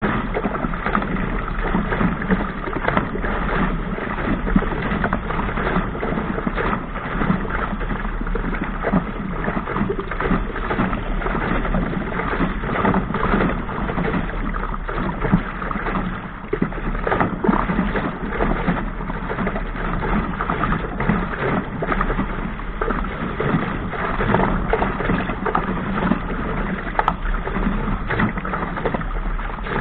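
Rushing water and wind as a small sailing dinghy drives through choppy sea, with frequent irregular splashes of waves against the hull.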